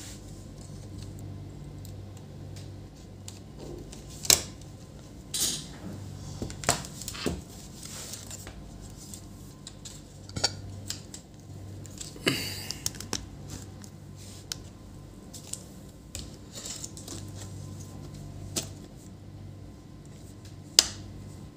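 Scattered clicks, taps and short scrapes of plastic and metal laptop parts being handled and pressed into place during reassembly, the sharpest clicks about four seconds in and near the end, over a steady low hum.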